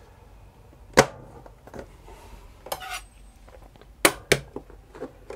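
Kitchen knives clacking onto a stainless-steel magnetic knife rack: a handful of sharp metal clicks as the blades snap onto the magnets. The loudest comes about a second in, and a quick pair follows just after four seconds.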